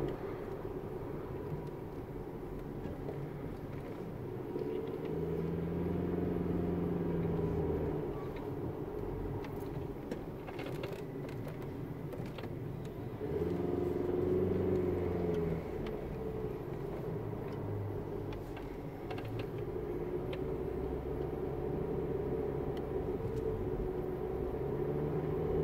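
Car engine and road noise heard from inside the cabin. The engine note rises and falls as the car climbs a winding mountain road, swelling louder in three stretches of a few seconds each.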